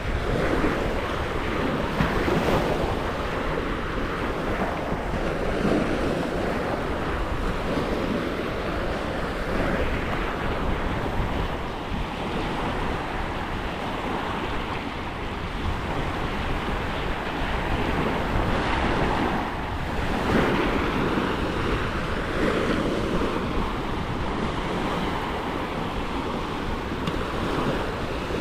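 Sea waves washing onto a beach in a steady wash that swells and eases, with wind buffeting the microphone.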